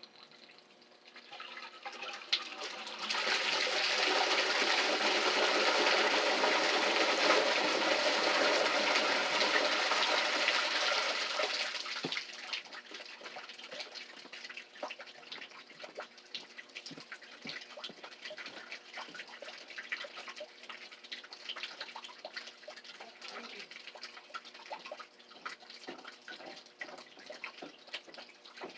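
Flushed toilet water pouring down the drain line into a bucket, building over a couple of seconds, running strong for about nine seconds, then dying away into trickling and scattered drips.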